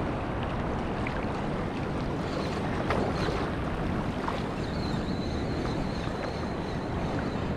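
Steady wash of sea waves on a rough, choppy shore, with wind blowing across the microphone.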